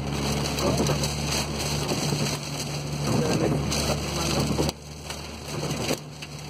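Inside a car driving through a heavy storm: the engine and road noise make a steady low hum, with rain hitting the windscreen and wind. The hum drops in level about two-thirds of the way through.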